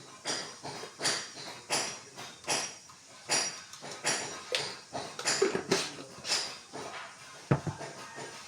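A spoon scraping and stirring in a cooking pot, in regular strokes about one and a half times a second, with a sharp knock of the utensil against the pot near the end.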